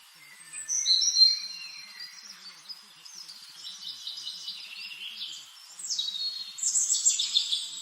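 Birdsong: several birds chirping and whistling, with louder phrases about a second in and again from about six seconds.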